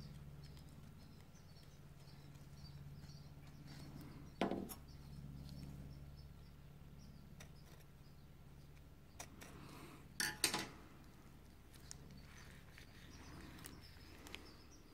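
Light clicks and knocks of a hand pick and the metal brake caliper being handled as a dust seal is worked into the piston bore, over a low steady hum. There is one sharp click about four and a half seconds in and two more close together about ten seconds in.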